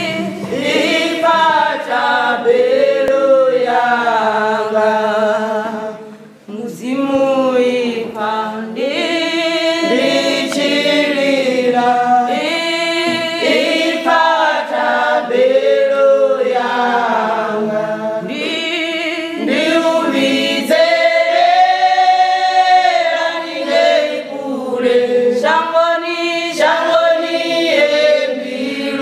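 A women's gospel choir singing a cappella in Tshivenda, many voices together with no instruments, with a short break for breath about six seconds in. Hand claps join the singing near the end.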